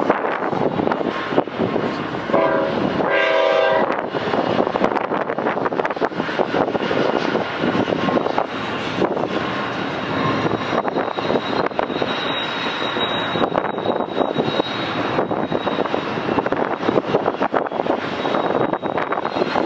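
BNSF diesel freight locomotives rumbling past in a long consist, their engines and wheels making a steady heavy noise. About two and a half seconds in, a horn sounds one short blast of about a second and a half.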